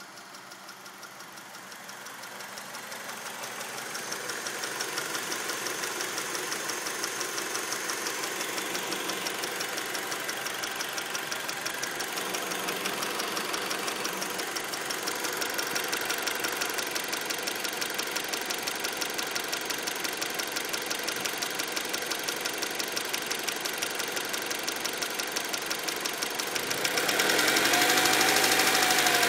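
2003 Acura RSX's 2.0-litre K20 four-cylinder engine running at idle with a fast, steady ticking that remains after a valve adjustment, its cause unknown. The engine grows louder over the first few seconds and is revved up and back down near the end.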